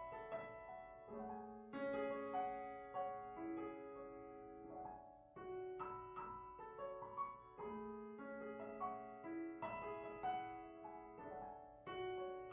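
Background music played on piano: a melody over chords, each note struck and left to ring.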